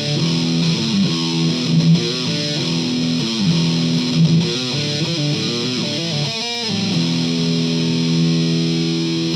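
Jackson Rhoads JS32T electric guitar on its middle pickup, played through a Behringer Ultra Metal distortion pedal into a Marshall Origin 50 amp: high-gain riffing. From about seven seconds in it holds one sustained note, which is cut off abruptly near the end.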